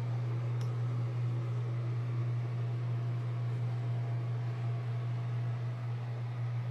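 A ventilation fan running: a steady low hum with a faint hiss above it. A tiny click comes about half a second in.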